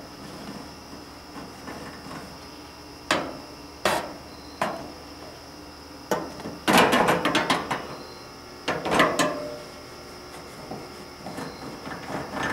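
Sharp knocks and rattles on a gas grill's metal: three single knocks, then a quick rattling flurry about seven seconds in and a shorter one around nine seconds in.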